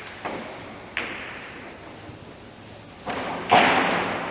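Carom billiard balls knocking against each other and the cushions during a shot on a five-pin billiards table. Several sharp clicks and knocks sound, the loudest about three and a half seconds in, each ringing on briefly.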